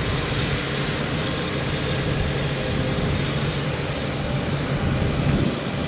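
Kubota DC95 diesel engine on a tracked rotary tiller, running steadily under load as the tiller works through wet rice-field mud. It makes an even, low drone.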